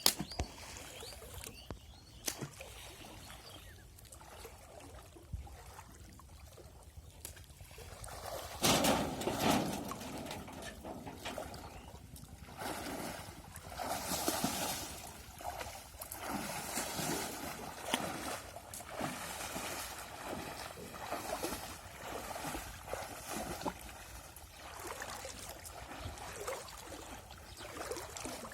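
Water sloshing and trickling in irregular splashes, with a louder splash about nine seconds in.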